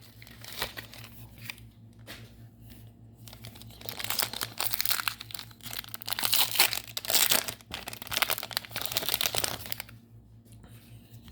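Foil Pokémon booster pack wrapper being torn open and handled, quiet rustling at first and then loud, dense crinkling for several seconds before it settles down near the end.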